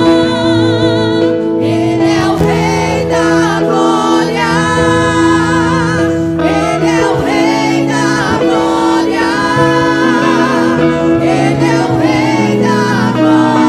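Women's vocal group singing a gospel praise song together over sustained instrumental accompaniment, the voices coming in about two seconds in.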